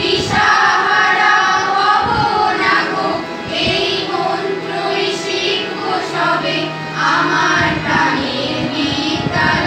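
Children singing a song with musical accompaniment, a steady low held note sounding under the voices for a couple of seconds past the middle.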